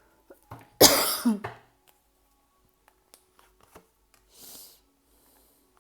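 A woman clears her throat once, a loud rasping burst about a second in, followed by a few faint clicks.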